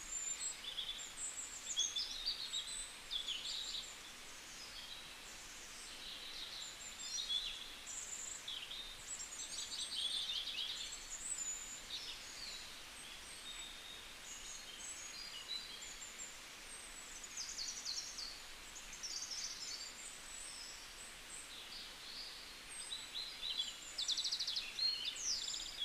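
Birds chirping and singing, a steady stream of short, high calls and quick trills over a faint background hiss.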